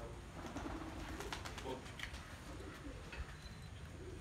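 A dove cooing faintly, with a few faint ticks.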